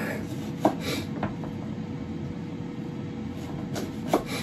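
Kitchen knife trimming Brussels sprouts on a wooden chopping board: a few sharp knocks of the blade on the board, three close together about a second in and one near the end, over the steady hum of an air fryer running.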